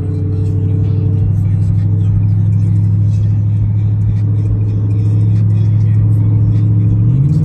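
Car engine droning steadily at highway cruise, heard inside the cabin with the windows up; about seven seconds in, the pitch rises quickly as the engine revs higher.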